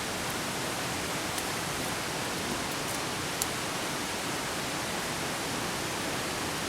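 Steady, even hiss with no speech, broken only by a couple of faint ticks.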